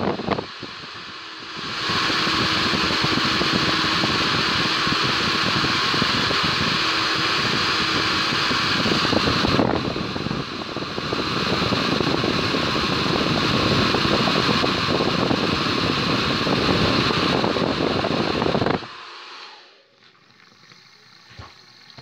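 Hand-held hair dryer running, blowing air onto a fidget spinner on a tabletop: a steady rush of air that starts about two seconds in, dips briefly about halfway, and cuts off suddenly a few seconds before the end.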